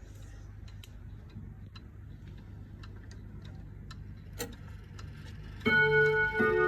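ODO 57 Sonodo French pendulum clock ticking evenly, with one louder click about two-thirds of the way in. Near the end its chime starts: several ringing notes sound together and overlap.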